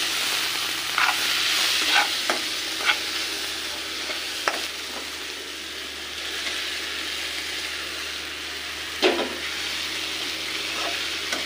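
Chopped onion and tomato sizzling steadily in hot oil in a wok-style pan while a metal spatula scrapes and stirs, knocking against the pan several times; the loudest knock comes about nine seconds in.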